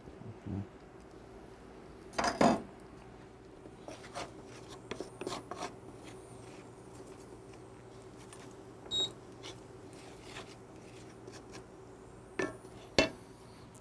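Kitchen cookware and utensil sounds: a wooden spoon stirring and scraping in a stainless steel sauté pan, with scattered knocks and clatters, the loudest a pair about two seconds in, and a brief metallic ring about halfway. A faint steady hum runs underneath.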